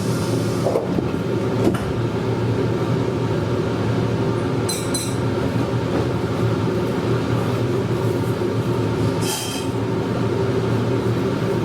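Meitetsu 100 series electric train heard from the driver's cab: a steady hum of its electrical equipment and running noise. Short high-pitched sounds come about five seconds in and again about nine seconds in.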